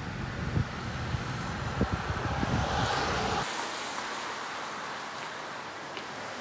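Outdoor street ambience: wind rumbling and buffeting the microphone with irregular thumps, then, after an abrupt change about three and a half seconds in, a steady hiss of city traffic.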